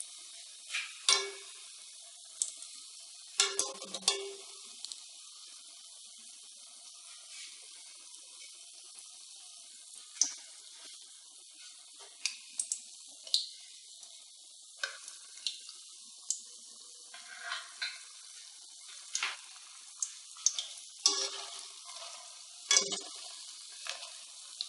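Gram-flour pakoras deep-frying in hot oil in a metal karahi, a faint steady sizzle throughout. Scattered sharp clinks and scrapes come from a metal spoon and a slotted skimmer against the pan as the pakoras are turned.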